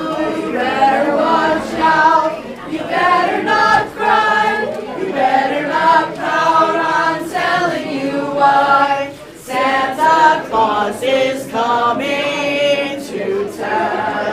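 A choir singing unaccompanied, with voices holding sung notes.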